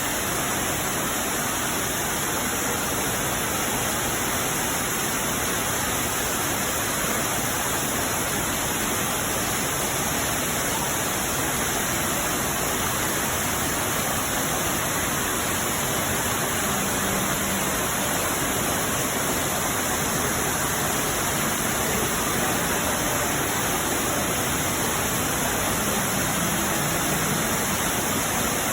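Steady rushing of water from a waterfall: an even, unbroken hiss.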